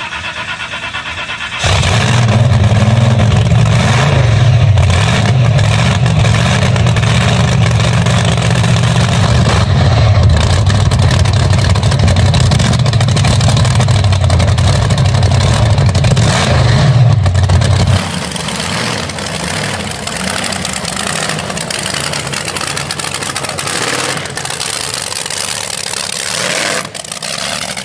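Supercharged engine of a stagecoach-bodied wheelstander dragster running loud and revving, throwing flames from its exhaust. About eighteen seconds in the engine's deep note drops away, leaving a broad rushing noise.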